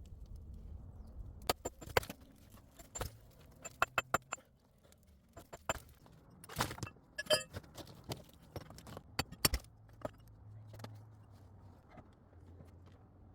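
A run of irregular sharp knocks and clicks, some in quick clusters, over a low steady rumble; the knocks stop about two thirds of the way through.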